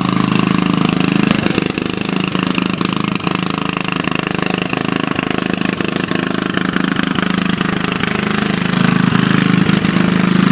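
John Deere riding lawn tractor's small engine running steadily with a fast, even putter, getting louder near the end as the tractor comes close.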